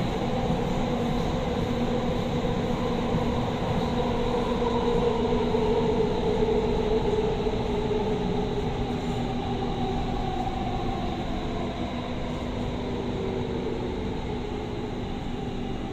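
Doha Metro train running through a tunnel, heard from inside the car: a steady rumble of wheels on rail with a motor whine that slowly falls in pitch from about halfway through.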